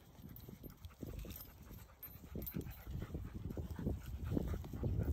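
A dog panting close by in short, uneven breaths that grow louder toward the end.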